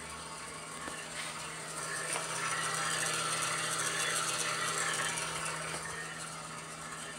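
Homemade drum machine running: a steady motor hum under rushing fan air, the air noise growing louder in the middle and easing off near the end.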